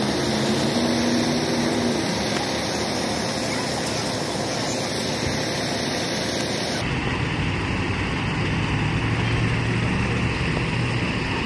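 Fire engine's engine running steadily under a broad hiss, with no breaks; about seven seconds in the sound abruptly turns duller.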